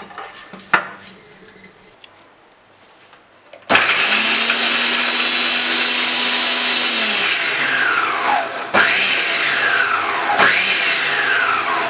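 Bajaj food processor's motor chopping onion, ginger, garlic and green chillies. It starts suddenly about four seconds in and runs steadily for about three seconds. It is then worked on pulse: three short bursts, each winding down in pitch before the next. A single sharp click just under a second in.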